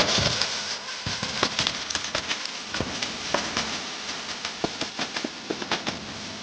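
Food frying in hot oil, sizzling with a dense crackle of sharp pops and spatters that eases a little toward the end.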